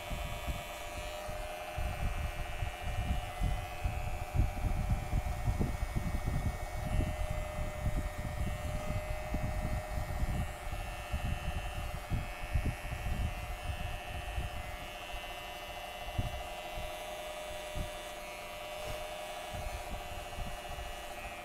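Electric hair clipper running with a steady hum while it cuts hair over a comb on the back of the head, blending the line of a fade. Irregular low thumps sound beneath the hum throughout.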